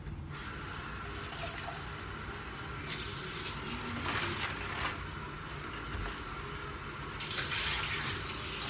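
Kitchen tap running into the sink in a steady hiss, getting louder for a couple of seconds twice.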